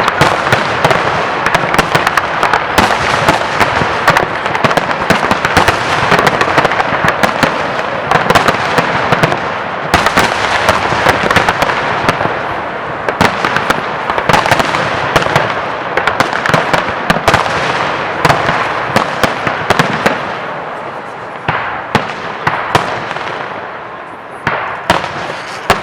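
Fireworks display: a dense, continuous barrage of cracks and pops over a steady crackle, easing slightly after about twenty seconds.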